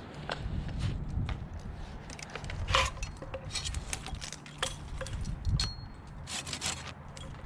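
Irregular clicks, knocks and short scrapes of wood and tools being handled, over a low steady hum.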